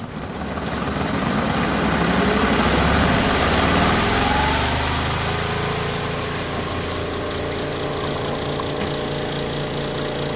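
Spin dryer of a portable RV washing machine starting its spin with a jacket inside: the motor and basket whine up in pitch and grow louder over the first few seconds, then run steady at full speed.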